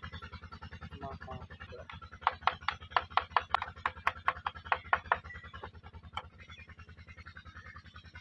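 A quick run of about a dozen sharp, ringing taps, about four a second for some three seconds from about two seconds in, as a small hand tool strikes the bamboo model being built. Steady background music with a pulsing low beat runs under them.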